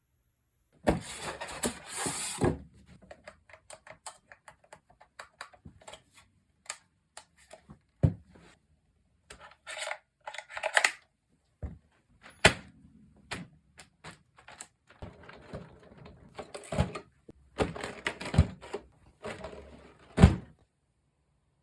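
Unboxing handling sounds of a Traxxas Slash RC truck and its packaging: short bursts of rustling and scraping with scattered clicks and knocks, the loudest a sharp knock near the end.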